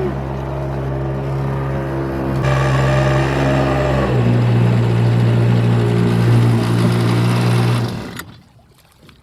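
Hankai 3.6 hp two-stroke outboard motor running under way, growing louder about two and a half seconds in and settling to a slightly lower pitch around four seconds. The sound stops abruptly near the end.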